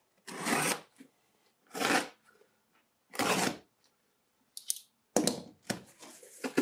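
A blade slitting the packing tape on a cardboard box in three strokes about a second and a half apart, then tape ripping and cardboard flaps being pulled open near the end.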